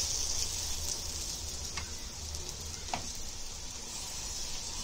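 Oil sizzling steadily under a paratha frying in a nonstick pan, with two light taps of a utensil on the pan about two and three seconds in.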